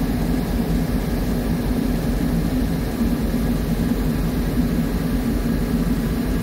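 Diesel locomotive engine idling, heard from inside the cab as a steady low drone.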